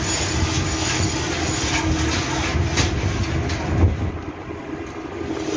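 Steady ship engine-room machinery rumble with a constant hum, with metal clanks as turbocharger parts are handled and one sharp knock about four seconds in. The rumble eases a little near the end.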